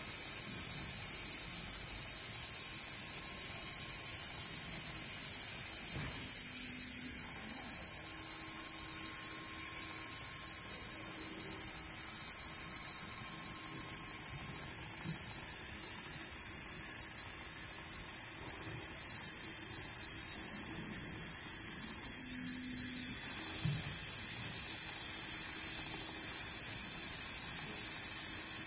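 Large-format computerised pattern sewing machine running as it stitches leather, giving a steady high-pitched whine that shifts in level a few times along the way.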